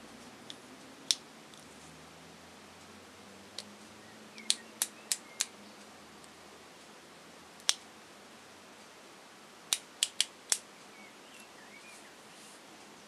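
Detent clicks of an Olympus OM20's ASA film-speed dial turned by hand: sharp single clicks and two quick runs of four clicks as the film speed is stepped down and back up.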